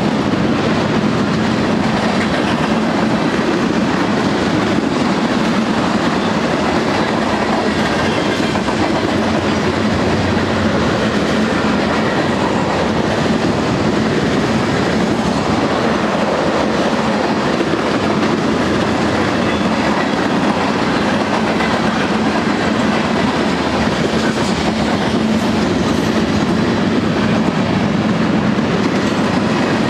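A mixed freight train of covered hoppers, tank cars and boxcars rolling past at close range: a steady, loud rumble of steel wheels on rail.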